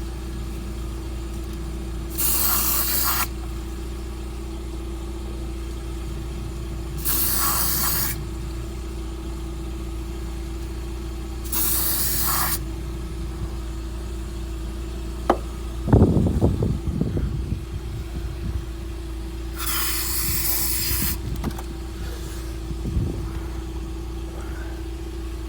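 Aerosol can of silicone lubricant sprayed in four separate bursts of about a second each onto the rubber rear-strut bump stops, to stop them squeaking against the metal. A steady low hum runs underneath, and a clattering knock sounds about two-thirds of the way through, the loudest moment.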